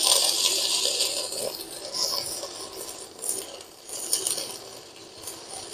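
Stick (MMA) arc welding with a No. 10 electrode on a Uyustools 160 A inverter welder: the arc crackles and sputters continuously. It is struck just as the sound begins, is loudest over the first couple of seconds, then runs on more quietly.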